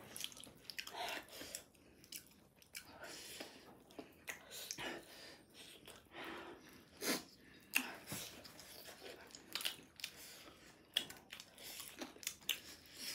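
Faint close-up chewing and biting, with irregular small crunches and mouth clicks.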